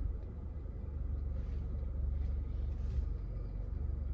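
Steady low rumble of a car's idling engine heard inside the cabin, with faint crunchy chewing of crispy fried chicken nuggets.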